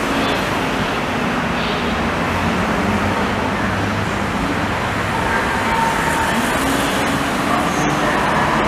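Danhai light rail tram approaching along curved elevated track: a steady rumble with faint whining tones.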